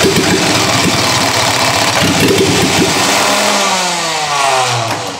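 Electric starter cranking a petrol engine converted to run on diesel with raised compression, with starting fluid sprayed into the intake; the engine does not keep running on its own. About three seconds in, the cranking slows and winds down with a falling pitch as the starter tires.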